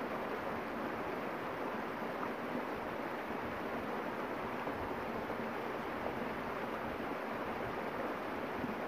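A creek flowing, a steady rush of running water.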